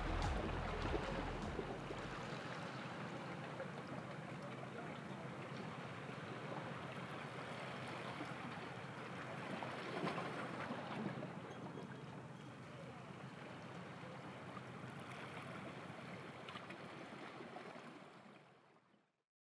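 Steady wash of water on the shore of the bay, faint and noisy, under the last of a music track in the first two seconds. It fades out to silence near the end.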